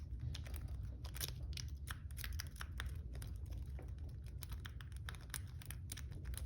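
Small, irregular clicks and scrapes of a lock pick and tension wrench working in the keyway of a Master Lock 312D padlock as it is being picked, over a steady low hum.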